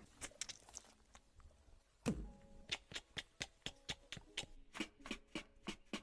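A series of sharp clicks: a few scattered ones at first, a low thump about two seconds in, then quick, evenly spaced clicks about four a second.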